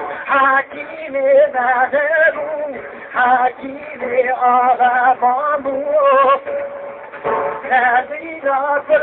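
A man singing a kaside, a Turkish devotional ode, in long wavering ornamented phrases, with a steady held tone running underneath.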